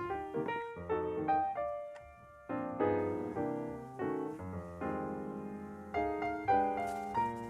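Background piano music: struck notes and chords that fade away, changing about every half second, with a short lull about two seconds in.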